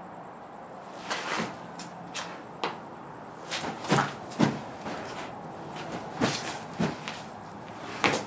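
Irregular thumps and scuffs of a person stepping, turning and lunging through a sword routine, about a dozen in all, the loudest around four seconds in and again near the end.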